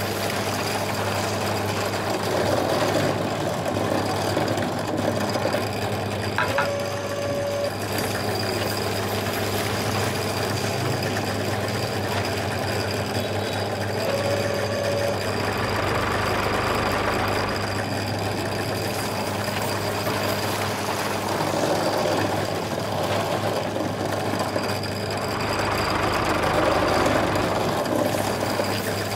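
Small electric motor of a miniature model tractor's auger attachment whirring steadily as the auger bores into sand, swelling a little in level twice, around the middle and near the end.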